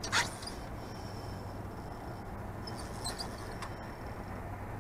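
Fishing reel being wound in against a hooked fish, a faint raspy ratcheting with a few small clicks, after a short knock at the very start.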